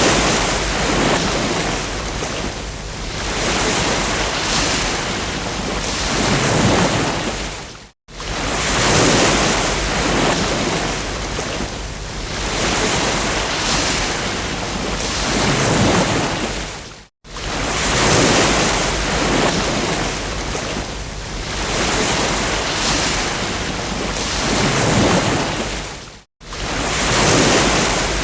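Ocean waves breaking and washing up a beach in repeated swells of surf. The sound cuts out abruptly for a split second three times, about every nine seconds.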